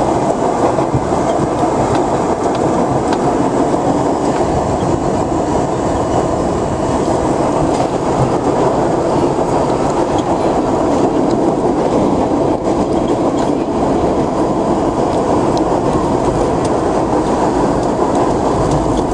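R32 subway car running at speed through a tunnel, heard from inside the car at the front window: a steady, unbroken noise of wheels on rails and motors.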